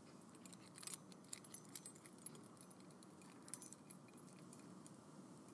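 Near silence with faint, scattered jingling of keys: light metallic clicks, mostly in the first two seconds and again briefly past the middle.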